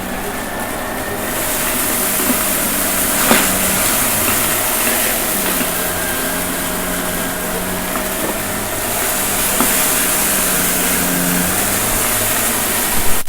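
Shark vacuum cleaner running steadily, a motor hum under a high hiss that grows louder about a second in, with a few sharp ticks as it picks up debris from a mess test.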